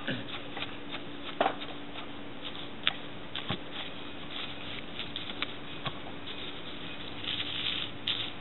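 Scattered light clicks and taps of plastic Schleich toy horse figures being handled and set down on a surface, a dozen or so irregular knocks, over a faint steady hum.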